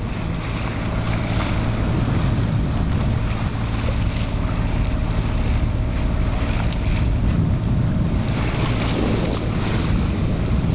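Water rushing and splashing along the bow of a moving sailboat, with wind buffeting the microphone and a steady low drone underneath.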